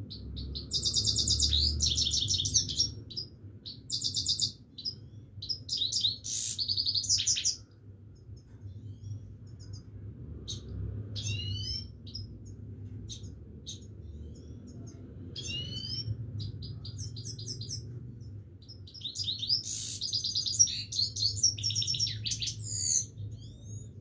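Himalayan (grey-crowned) goldfinch singing in bursts of rapid, twittering trills. The bursts are loudest in the first few seconds and again near the end, with sparser thin, rising notes in between.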